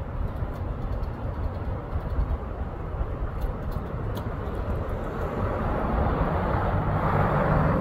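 Steady rumble of road traffic, growing louder over the last few seconds as a vehicle comes closer.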